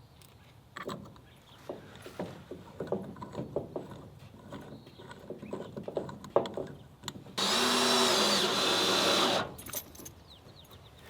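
A few scattered knocks and taps, then a cordless drill running steadily for about two seconds, about seven seconds in, driving a screw to fasten a plastic mounting block to metal barn siding.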